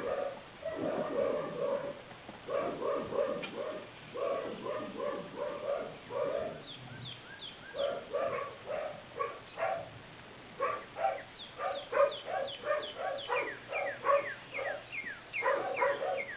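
A dog barking over and over in quick runs of barks with short pauses, some higher-pitched yelps among them.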